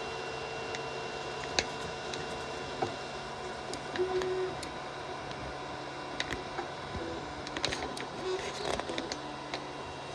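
Biqu BX 3D printer printing cubic infill: its stepper motors whine in short notes that change pitch with each move, over a steady hum. Light clicks come scattered through it, more of them in the second half.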